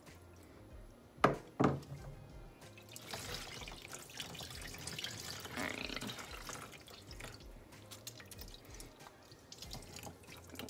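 Two sharp knocks about a second in, then water splashing and dripping as a soaked wig is lifted and squeezed out over a plastic tub of dirty shampoo water in a sink.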